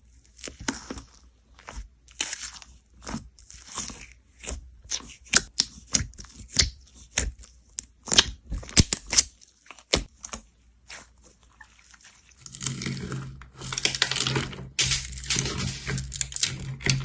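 Fingers squeezing and poking thick white slime in a tub, giving a run of sharp pops and squelches as trapped air bursts. About twelve seconds in, this turns into a denser, continuous crackling as fingers press into slime mixed with small crunchy pieces.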